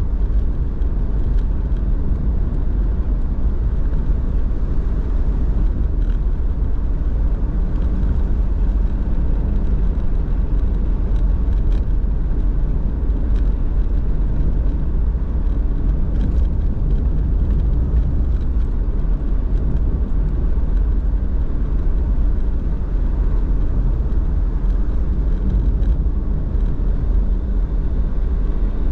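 Car driving at a steady pace: a constant low rumble of road and engine noise.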